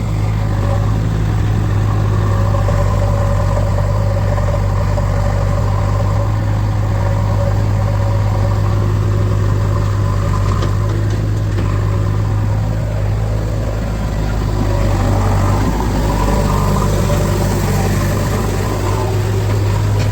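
Heavy diesel engine of a construction vehicle running steadily close by, a loud low drone that eases slightly for a moment and then builds again.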